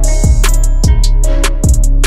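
Background music with a steady drum beat and plucked guitar.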